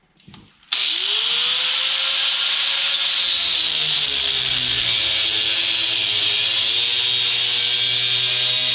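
Electric angle grinder spinning up and cutting into metal, with a loud high grinding hiss. Its motor pitch rises as it starts, then sags and recovers as the cut loads it.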